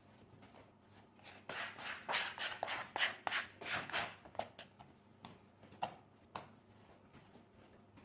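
Plastic bench scraper scraping stuck dough and flour off a wooden board in a quick run of strokes, starting about a second and a half in, followed by a few scattered soft knocks as the dough is kneaded by hand on the board.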